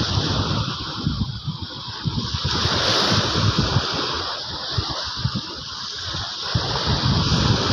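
Steady wash of sea surf, with wind buffeting the microphone in irregular low rumbles.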